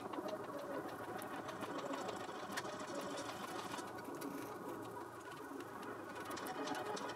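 Fast, rattly hand scraping and scrubbing of carbon deposits inside an engine's intake port, a quick run of small scratches and clicks.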